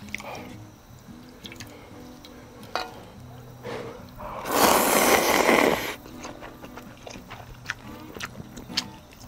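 Ramen noodles slurped once, loudly, for about a second and a half near the middle, among chewing and small clicks of eating. Background music plays throughout.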